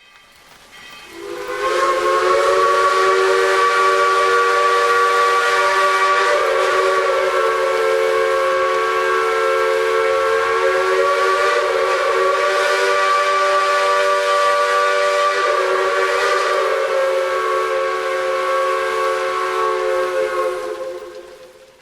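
Chime steam whistle of the 1924 Baldwin 2-6-2 locomotive Santa Maria Valley Railroad No. 205, blown in one long blast of about twenty seconds: several notes sounding together as a steady chord, opening with a short hiss of steam.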